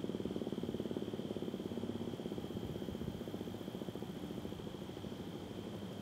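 American Signal T-135 warning siren winding down at the end of its test: a low, rapidly pulsing tone that fades steadily.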